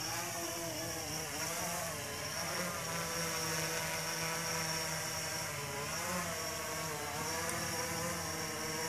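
Blade 350QX quadcopter's four electric motors and propellers whirring in flight, the pitch rising and falling as it changes speed to manoeuvre.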